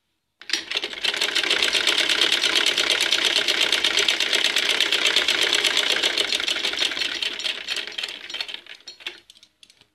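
Black domestic straight-stitch sewing machine running, stitching along the edge of a salwar cuff: a fast, even rattle of needle strokes that starts about half a second in. It slows and stops near the end, followed by a few faint clicks.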